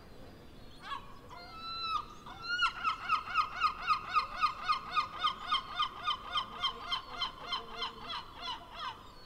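A large gull giving its long call: a couple of drawn-out opening notes, then a long run of about twenty repeated calls at roughly three a second, growing softer toward the end.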